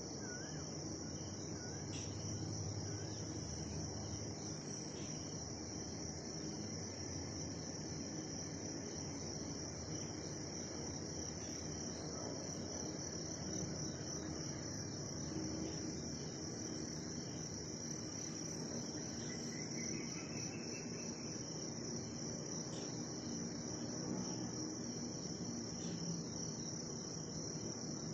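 Crickets trilling in a steady, unbroken high-pitched chorus over a low, even background rumble.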